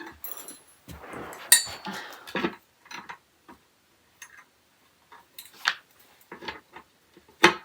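Scattered light clicks, taps and a brief rustle of rack parts and screws being handled and fitted during flat-pack assembly, with one sharper knock near the end.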